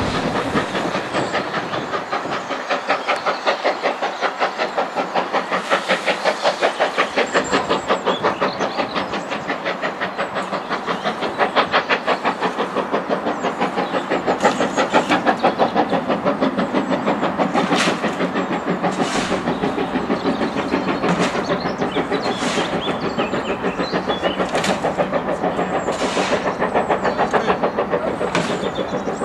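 GNR Class N2 0-6-2T steam tank locomotive chuffing steadily as it pulls a train away, a fast even run of exhaust beats.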